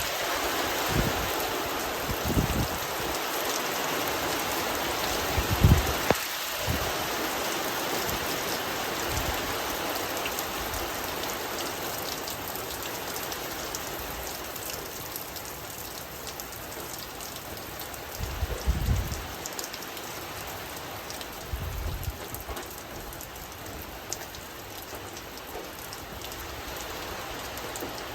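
Steady rain falling as an even hiss that slowly eases, with a few brief low thumps, about 6 seconds in and again near 19 and 22 seconds.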